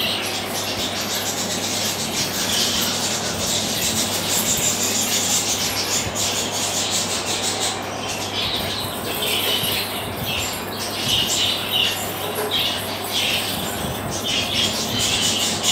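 Pigeon squab being fed crop milk beak-to-beak by its parent: fast steady rustling of the feeding, joined from about halfway through by short high squeaks that come again and again.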